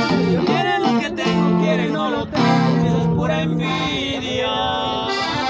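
A small band playing live: a strummed acoustic guitar with accordion and bass guitar, and a voice singing over them.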